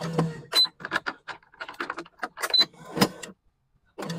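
Electronic badminton stringing machine tensioning racket strings to 29 lbs. A short motor whirr as the tension head pulls, a brief high beep twice, and many clicks and rattles of clamps and string being handled.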